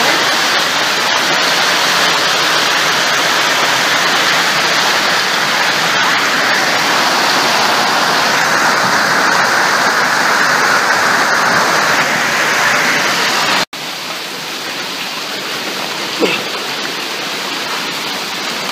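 Heavy hail and rain pouring down in a dense, steady hiss of countless impacts. About 14 seconds in, it cuts off abruptly and carries on noticeably quieter.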